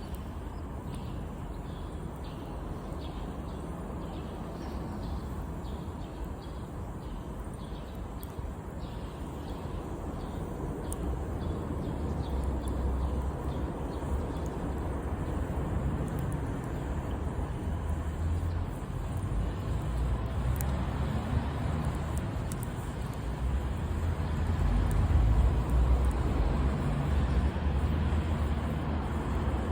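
Campfire burning, with scattered sharp crackles and pops over a low steady rumble that grows louder in the second half.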